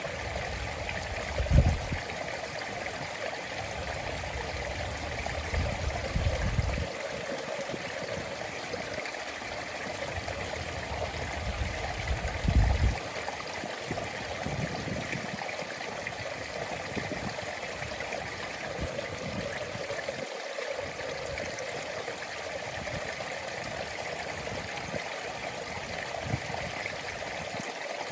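Stream water flowing and trickling steadily. Three brief low rumbles stand out, about a second and a half in, around six seconds and around twelve seconds.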